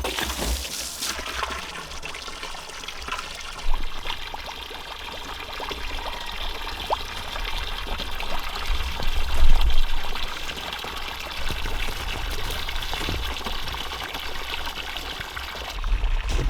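Water running steadily from a hose and splashing into a container, with a brief knock a few seconds in.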